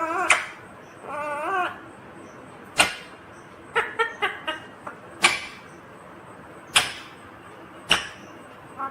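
Indian ringneck parrot calling: two short warbling, wavering calls in the first two seconds, then a string of short, sharp calls, several in a quick cluster about four seconds in and single ones every second or so after.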